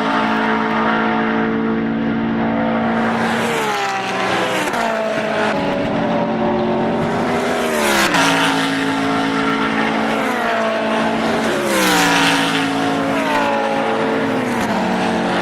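GT3 race cars, the BMW Z4 GT3's V8 among them, passing at speed one after another. Several engine notes overlap, and about four times the pitch drops sharply as a car goes by.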